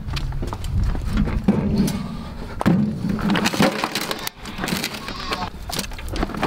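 A heavy spoil bucket being tipped and knocked out into a metal wheelbarrow: irregular thumps and scrapes of the bucket against the barrow, with wet earth dropping in.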